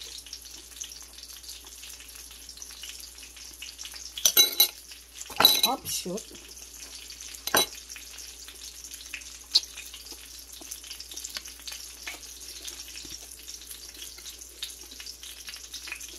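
Steady crackling sizzle of oil frying in a pan, with a few louder sharp, short sounds about four, five and a half and seven and a half seconds in.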